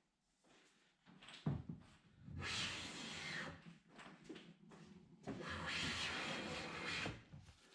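Luban hand plane taking two long smoothing strokes along a wooden panel, each a hiss of the shaving lasting about two seconds, after a short knock about a second and a half in.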